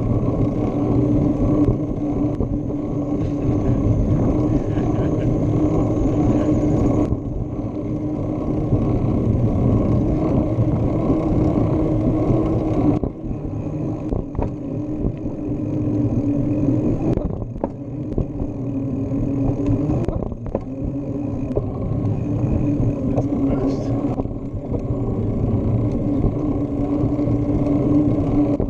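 Wind and road noise from riding a bicycle, with a steady hum running through it; the sound dips twice for a moment.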